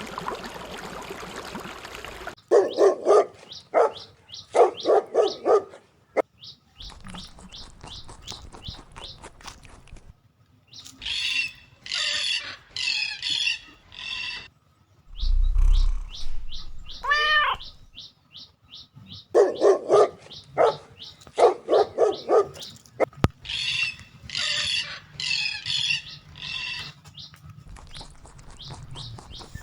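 Pet animal calls: bursts of rapid, yapping dog-like calls alternating with stretches of shrill, high bird squawks, the same sequence heard twice, with a single drawn-out call in between.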